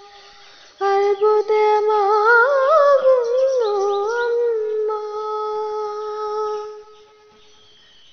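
A woman's voice humming the closing phrase of a song. She comes in about a second in, weaves a wavering run in the middle, then holds one long steady note that ends about seven seconds in.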